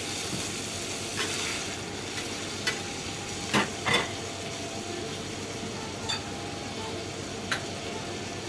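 Cubes of Chateaubriand beef sizzling steadily as they sear on a hot teppanyaki steel griddle. A few sharp clicks of metal spatulas on the steel plate come through, the loudest two close together about three and a half seconds in.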